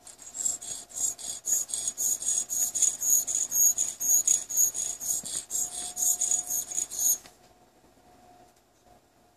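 Water-wetted synthetic sharpening stone scraping in short, quick up-and-down strokes around the toe of a universal curette, about three or four strokes a second, stopping about seven seconds in.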